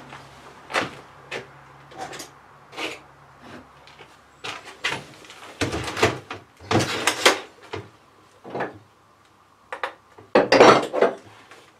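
Irregular knocks and clatters of tools being rummaged through, some sharp single clacks and some short rattling runs, with the loudest clatter about ten and a half seconds in.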